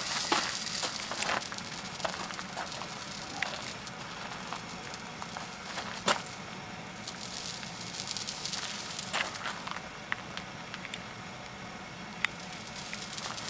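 Crackling and hissing from a hot raku pot smoking on its stand, with a few sharp ticks, the clearest about a third and two thirds of the way in and near the end.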